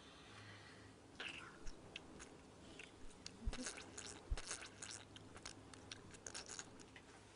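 Faint, irregular crinkling and crackling of clear plastic film being handled and wrapped around a leg, with a couple of soft knocks in the middle.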